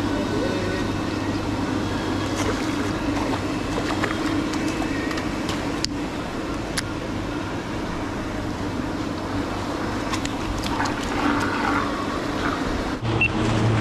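Paddle-wheel pond aerators running, a steady motor hum over churning, splashing water, with a few sharp clicks about six seconds in.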